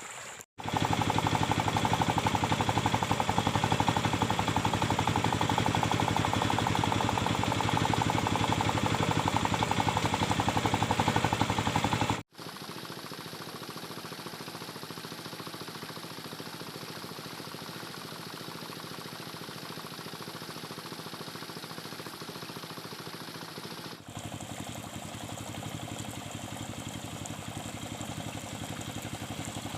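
Small engine of a homemade gold-mining machine running steadily, in three cut-together takes: loud for the first twelve seconds or so, then quieter and more distant for the rest.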